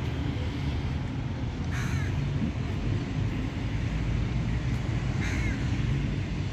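A crow cawing twice, about two seconds in and again about five seconds in, over a steady low rumble.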